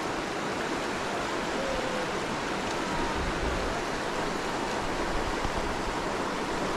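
Steady rush of a fast-flowing, rocky river running over small rapids.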